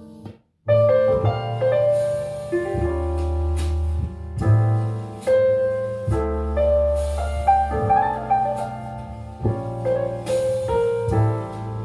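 Piano-led music with strong bass played at full volume through a small portable Bluetooth speaker, picked up from about a metre away. The music cuts out briefly just under a second in, then resumes.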